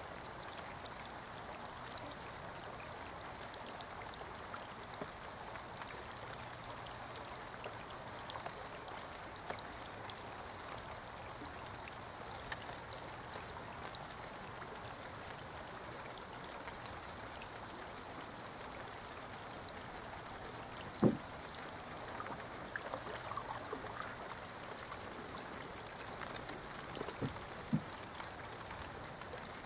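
Light rain falling on a slow brown river: a steady hiss of drops on the water with scattered faint ticks. A single sharp thump sounds about two-thirds of the way through, with a few smaller knocks near the end.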